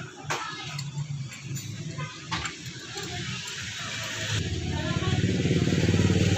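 A small motorcycle engine running, getting louder about two-thirds of the way in, with a few sharp metallic clicks and knocks in the first half.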